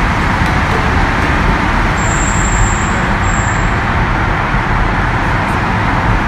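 Steady road and engine noise of a car driving through a road tunnel, heard from inside the cabin.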